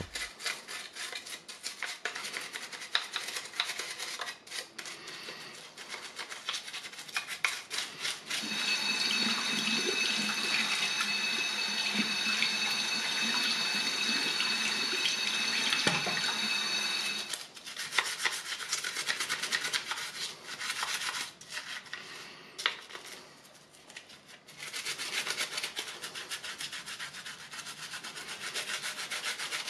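Toothbrush bristles scrubbing plastic cordless-drill housing parts with soapy water in a sink. For several seconds in the middle the tap runs over the parts, a steady rush of water with a thin whistling tone, and then the scrubbing carries on alone.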